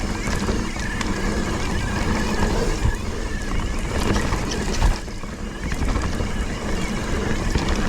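Wind buffeting the microphone of a GoPro on a moving mountain bike, with a steady low rumble and rattle from riding over the trail and a few sharp knocks.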